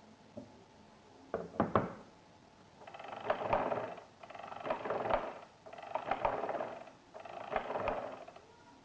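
Arithmometer mechanical calculator being worked by hand. A few sharp clicks come first, then four turns of the crank, each about a second long, with the stepped-drum gearing rattling and clicking through each turn.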